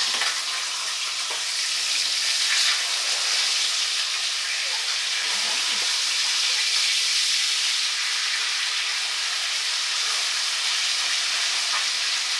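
Salmon frames sizzling in a frying pan on a gas stove, a steady hiss of frying, as they are stirred and turned with a spatula.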